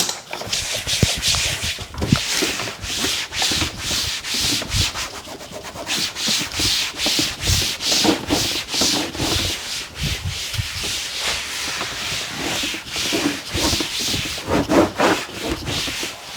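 Quick, repeated wiping strokes rubbed over the Honda Motocompacto's body panel, about two to three a second: the surface being cleaned before the vinyl skin goes on.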